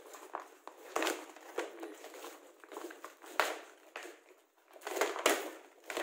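Clear plastic packaging film crinkling and rustling in irregular bursts as it is pulled off a toy by hand, with a few sharper crackles.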